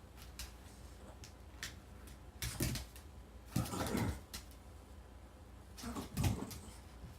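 Pomsky puppy hiccuping: several short hiccups a second or two apart, with a few light clicks before them.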